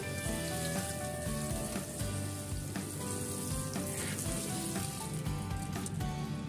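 Water showering from a plastic watering can's rose onto soil in grow bags, a steady spray, under soft background music.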